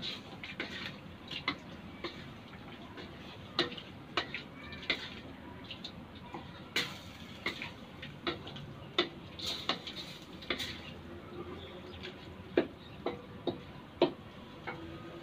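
Wooden spatula stirring pork cubes in a stainless steel wok, scraping and knocking against the metal at an uneven pace, several knocks a second.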